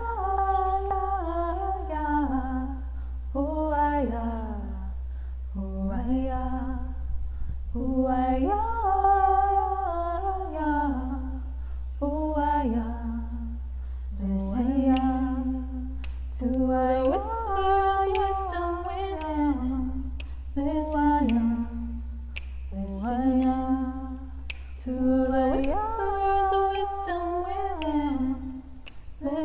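A woman singing a cappella in layered multi-track harmony, a slow wordless humming melody in phrases of two to three seconds, over a steady low hum that stops near the end.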